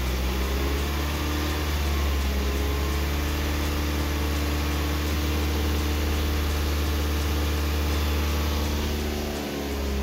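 2016 Mazda CX-5's Skyactiv four-cylinder petrol engine held at a steady 2200 RPM, heard from just above the open engine bay. It is a steady, even hum at constant pitch.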